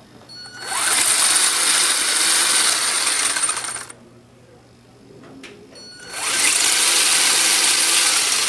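Toy RC car's small electric drive motor and gears running in two spells of about three seconds each, each spinning up quickly and then holding steady with a high whine.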